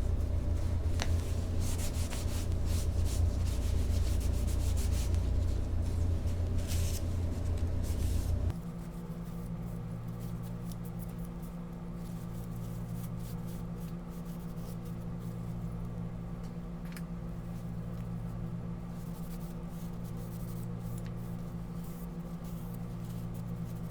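A cloth wiping excess walnut oil off walnut pieces, in repeated short rubbing strokes, over a steady low hum. About eight seconds in, the loud low rumble drops away suddenly, leaving a quieter hum under fainter rubbing.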